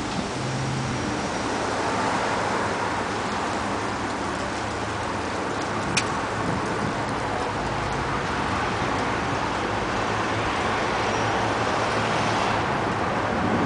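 Steady rain falling during a thunderstorm, an even hiss with one sharp click about six seconds in.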